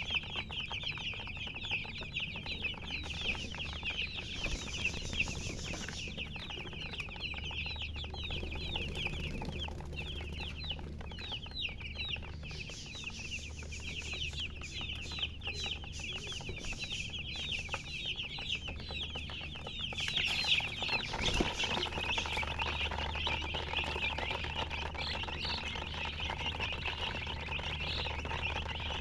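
A brood of chicks peeping continuously, many short high chirps overlapping one another; the chirping grows denser and louder about two-thirds of the way through.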